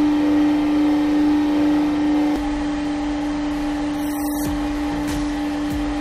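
Hydraulic press motor and pump running with a steady hum. It drops a little quieter a little over two seconds in and carries on evenly as the ram comes down.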